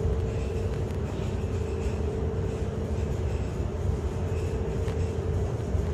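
Tugboat's diesel engines running steadily under load as it holds a line to a ship, heard inside the wheelhouse: a deep rumble with a steady hum over it.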